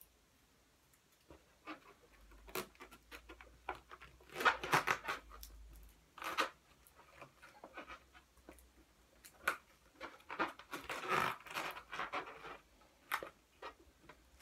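Inflated latex balloons handled and twisted by hand: rubber rubbing and rustling with scattered small clicks, louder bursts of rubbing about four to five seconds in and again around eleven seconds in.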